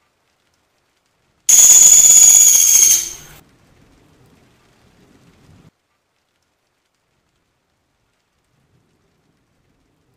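Pelatuk sampit woodpecker giving one loud, high-pitched trill of about two seconds, starting about a second and a half in.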